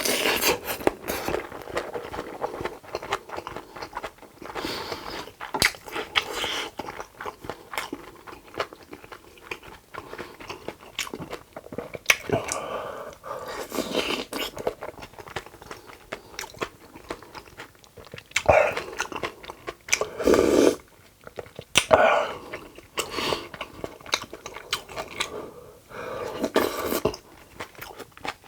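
Close-miked eating: chewing, biting and slurping mouthfuls of bibimbap and stew, with wet smacking and small sharp clicks. A few louder mouthfuls come late on.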